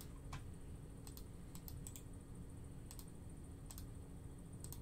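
Faint, scattered clicks of a computer keyboard and mouse, about a dozen at uneven intervals.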